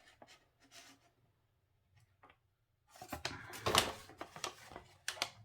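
Handling noise: a few faint clicks, then a louder stretch of rustling and clicking about three seconds in that lasts roughly two seconds.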